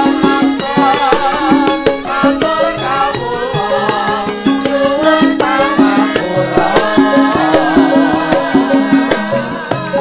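Javanese gamelan ensemble playing a steady pattern of struck notes, with a sinden's female voice singing a wavering, ornamented vocal line over it.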